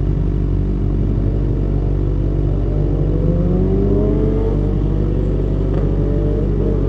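Kawasaki ZX-6R's inline-four engine running, a steady low drone with a tone that slowly rises in pitch from about a second and a half in.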